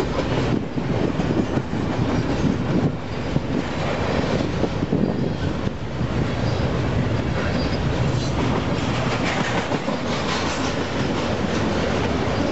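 A double-stack container train's well cars rolling past close by: a steady, unbroken rumble of steel wheels on the rails.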